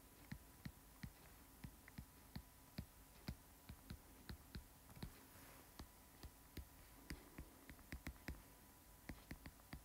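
Faint, uneven clicks of a stylus tip tapping on a tablet screen during handwriting, a few a second, over a faint steady hum.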